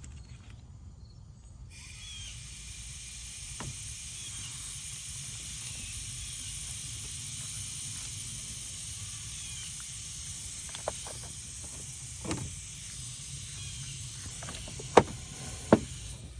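Compressed air hissing steadily at low pressure during an air pressure test of a car's cooling system; it starts about two seconds in and cuts off suddenly near the end. A few sharp clicks and knocks sound over it, the loudest two near the end.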